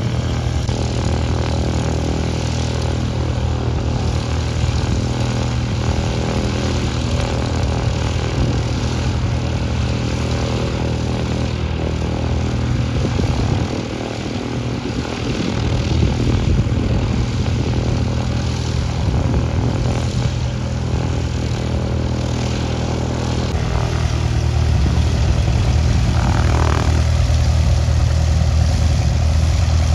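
Piston engines of light single-engine propeller planes running steadily. From about three quarters of the way in, the engine is louder and closer, that of a Cessna Skyhawk taxiing past.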